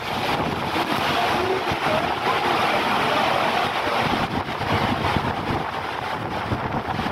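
Wind buffeting the microphone on the open deck of a cruise ship under way, over the steady rush of the ship's churning wake.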